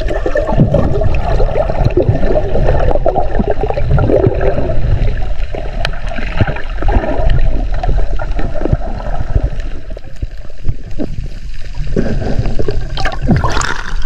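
Muffled underwater water noise at a submerged camera: gurgling, bubbling and knocks. About a second before the end the camera breaks the surface, and splashing and sloshing water come in sharper.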